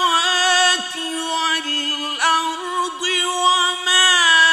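A man chanting the Qur'an in the melodic mujawwad style, unaccompanied. He draws out long, ornamented notes in a high voice, with short breaks between phrases.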